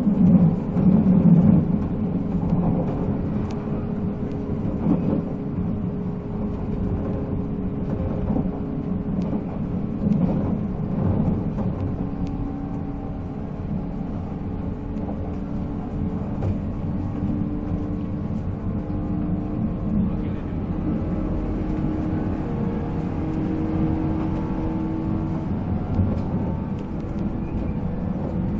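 485-series electric train running at speed, heard from on board: its MT54 traction motors hum in steady, slightly drifting tones over the rumble and rattle of wheels on rail.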